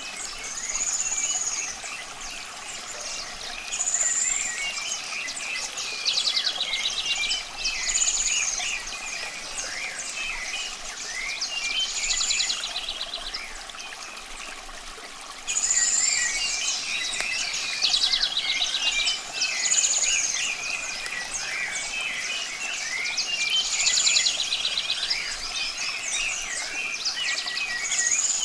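A chorus of songbirds chirping, whistling and trilling, many calls overlapping, over a faint steady hiss.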